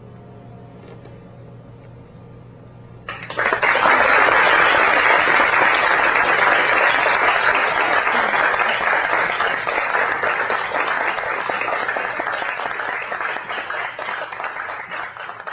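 A theatre audience breaks into applause about three seconds in, after the last held notes of the song's accompaniment fade away. The applause stays loud and dense, then slowly thins out near the end.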